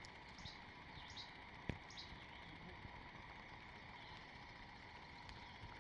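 Faint forest ambience with a bird's short, high chirps repeating at intervals, each falling in pitch. There is a single sharp click a little under two seconds in.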